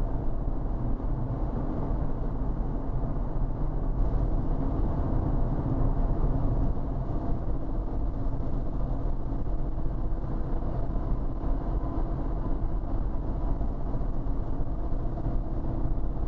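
Steady road and engine noise inside a car cruising on a highway, a low rumble with no breaks.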